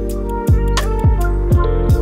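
Background music with a steady beat: deep kick drums that slide down in pitch, over held bass and melody notes.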